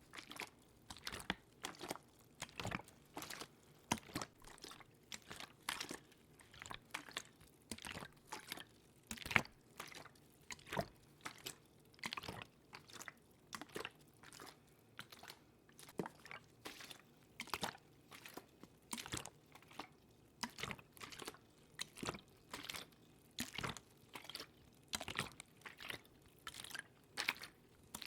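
Close-miked ASMR water sounds: a steady run of short wet clicks and crackles, about one to two a second, irregularly spaced.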